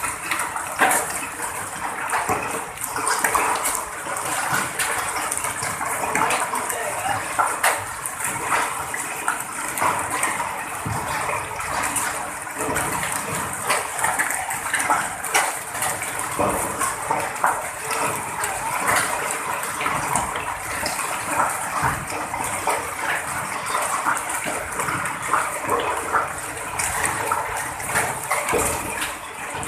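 Hailstorm with rain pelting down: a steady, dense rush full of sharp ticks from hailstones striking.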